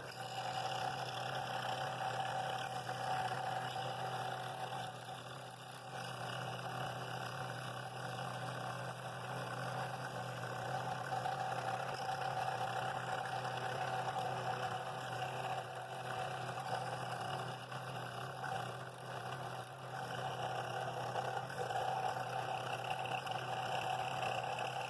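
Scroll saw running and cutting a wooden bowl ring in a 45-degree bevel cut: a steady machine hum with the reciprocating blade working through the wood, easing off briefly twice as the feed slows.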